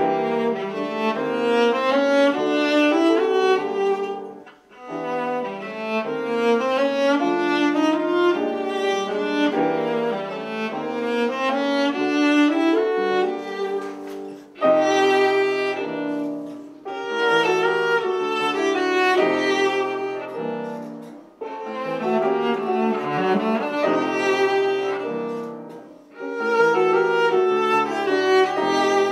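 Cello bowed in a classical piece, a melody of held notes in phrases broken by brief pauses every several seconds, with a piano accompanying.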